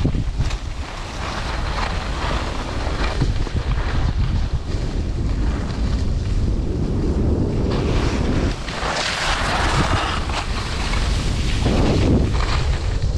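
Wind buffeting the microphone of a camera moving downhill on skis, over the hiss and scrape of skis sliding on packed snow, which swells about two thirds of the way through and again near the end.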